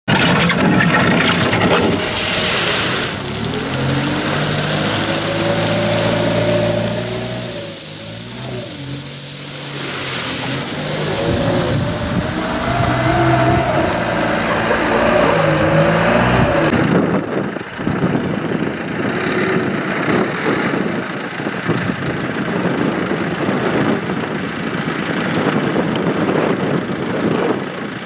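A compact wheel loader's engine runs and revs up and down as the machine drives and works its bucket. About two-thirds of the way through, the sound changes abruptly to a rougher, rattling machine noise.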